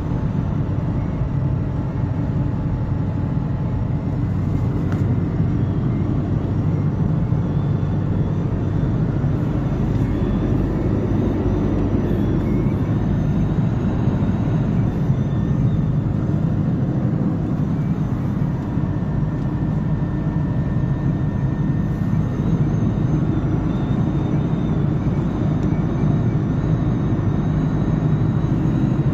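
Chevrolet Niva Travel at highway speed heard inside the cabin: a steady road and engine rumble with a thin, wavering high whistle above it, like someone playing a flute. The whistle comes from incoming air striking two bolt fittings behind a trim panel, one on each side. It appears above about 80 km/h and grows louder with speed.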